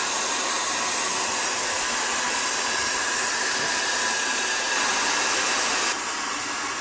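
Steady rushing hiss of compressed air blowing from the air-assist nozzle on a Comgrow Z1 Pro 20 W diode laser head as it cuts through pallet wood. The hiss drops a little in level about six seconds in.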